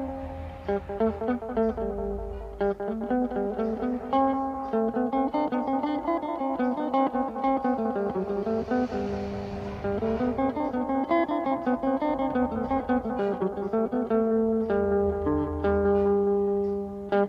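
Guitar played through an analog delay pedal with modulation, picking melodic phrases of single notes that ring on and overlap. A brief hiss swells up near the middle.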